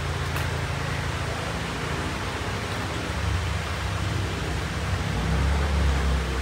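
Steady hissing rush of a portable gas stove's burner under a wok of water heating for noodles, with a low rumble that swells about five seconds in.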